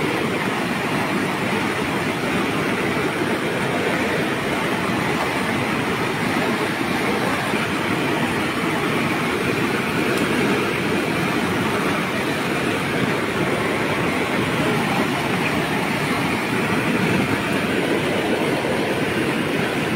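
Floodwater pouring through a breach in an earthen embankment: a steady, loud rushing of churning water.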